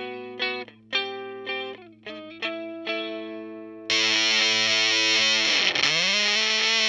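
Electric guitar played through a DIY Octavia-style fuzz pedal with a subtle octave-up, a Madbean Retrograde build: a run of picked single notes, each ringing and fading. About four seconds in comes a sudden, much louder, sustained fuzzed note, whose pitch dips and swings back up.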